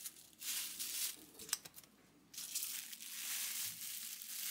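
Crinkling, rustling noise of something being handled: a stretch of rustling, a sharp click about a second and a half in, then steadier rustling from about halfway on.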